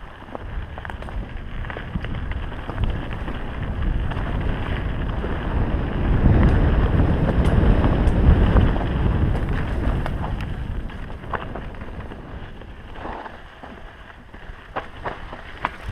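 Wind buffeting the action camera's microphone together with the tyre rumble of a mountain bike riding dirt singletrack, swelling to its loudest midway and then easing off. Near the end, sharp clicks and rattles of the bike running over rocks.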